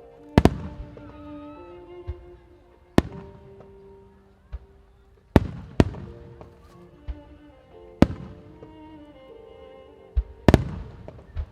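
Starmine fireworks display: sharp shell bursts every second or two, about six loud bangs with smaller ones between, over held notes of music playing alongside.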